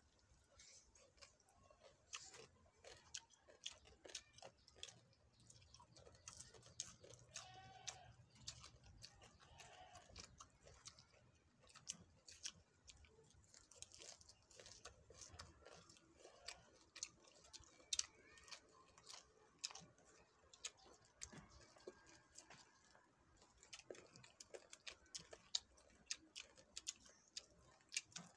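Faint, close-up eating sounds of two people chewing shredded green papaya salad and raw leafy greens: irregular crunching, chewing and small lip-smacking clicks.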